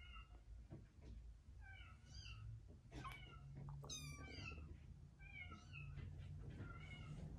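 Bengal kittens mewing faintly: a string of short, high mews, about one every second or so.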